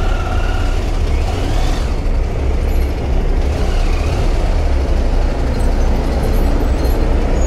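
Adventure motorcycle engine running at low speed as the bike creeps onto a car ferry's deck, a steady low rumble.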